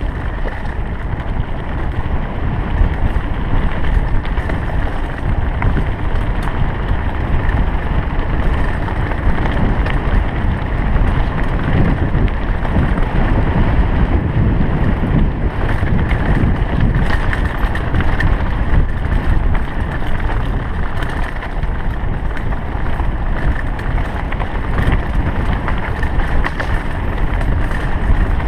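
A mountain bike rolling fast over a rocky gravel trail, heard from a chest-mounted action camera: a steady rumble of tyres on loose stones and the bike rattling with many small clatters, with wind rushing over the microphone.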